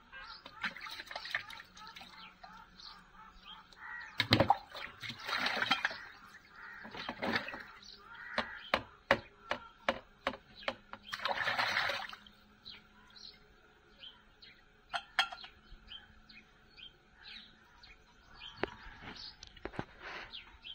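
Hands washing a plastic cap in a plastic tub of water: splashing and sloshing with sharp plastic clicks and knocks, the loudest bursts about four seconds in and again around eleven seconds. Birds chirp faintly in the background.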